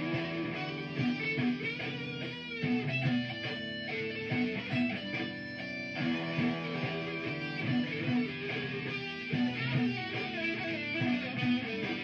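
Electric guitar played through effects pedals in an improvised solo over a looped rhythm part that repeats throughout.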